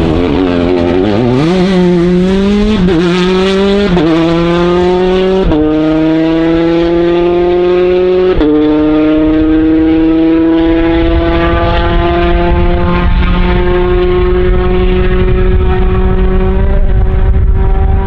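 Peugeot 208 T16 R5 rally car's 1.6-litre turbocharged four-cylinder accelerating hard out of a corner and changing up four times, the pitch dropping at each shift. It then holds one long, slowly rising pull in the top gear as it draws away into the distance.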